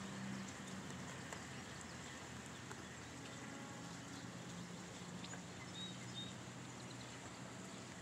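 Quiet outdoor ambience: a steady low hum under a soft hiss, with two short faint bird chirps about six seconds in.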